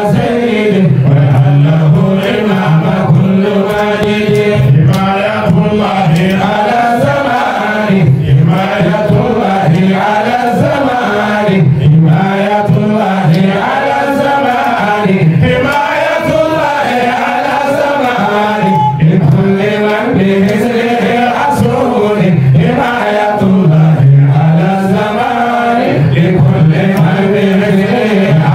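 A man chanting religious devotional verses into a handheld microphone, in long melodic phrases with short breaks for breath.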